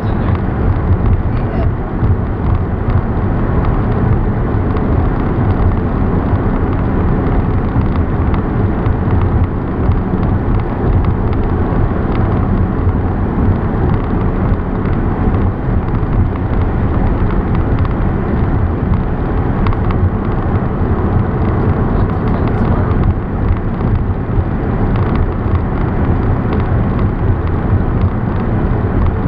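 Steady road and engine noise of a car driving along a highway, a continuous low rumble with no distinct events.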